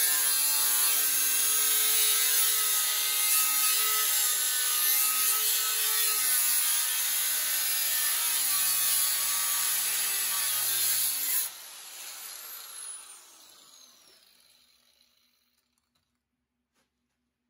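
Angle grinder with a cut-off wheel cutting through sheet steel, throwing sparks. After about eleven seconds the cut stops and the grinder spins down with a falling whine, fading to silence a few seconds later.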